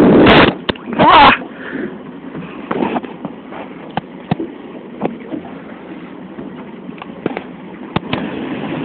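Overloaded wind rumble on the microphone that cuts off about half a second in, a short loud pitched cry about a second in, then a low hiss with scattered light knocks and clicks.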